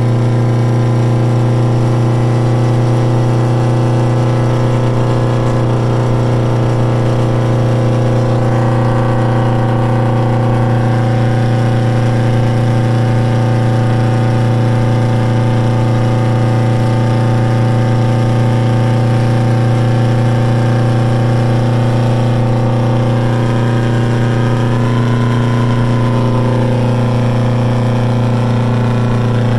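V8 diesel engine of an old semi tractor pulling steadily down the road, heard from inside the cab: a loud, even drone. Its pitch shifts slightly about eight seconds in and again near the end.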